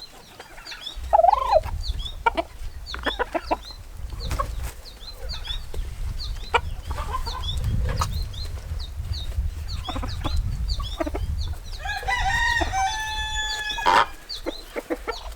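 A flock of chickens clucking, with many short high peeps throughout. A rooster crows from about twelve seconds in, holding the call for a couple of seconds. A steady low rumble runs underneath.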